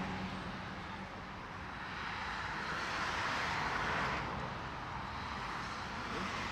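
Road traffic: a passing vehicle's tyre noise swells and fades about halfway through, over a steady low rumble of traffic.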